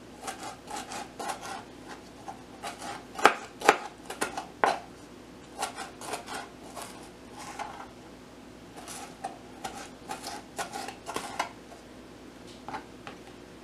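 Kitchen knife chopping cherry tomatoes on a plastic cutting board, giving irregular taps and scrapes, with two sharper knocks about three and a half seconds in.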